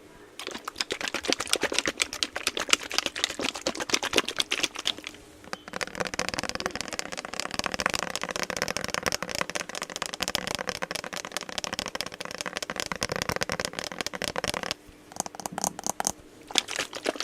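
Close-up ASMR sound of lotion being worked between fingers near the microphone: dense, fast sticky crackling and tapping, which turns to a steadier rubbing about six seconds in. It breaks off briefly about fifteen seconds in, then the crackling resumes.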